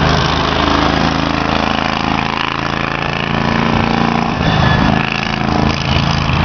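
Small go-kart engines idling, a steady mechanical drone with a slight shift in pitch about four seconds in.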